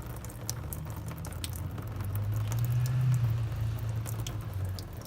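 Engine coolant draining out of a radiator through the disconnected lower hose, pattering and dripping in many small splashes. A low rumble swells up through the middle and fades again.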